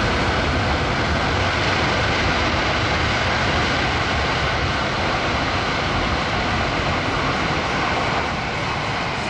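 The four turbofan engines of a C-17 Globemaster III running loud and steady, a continuous jet rush that eases slightly about eight seconds in.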